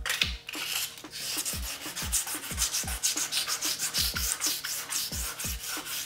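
Wet 600-grit sandpaper rubbed by hand back and forth over a plastic taillight lens: a quick, even rasping, several strokes a second. Low thuds repeat about twice a second underneath.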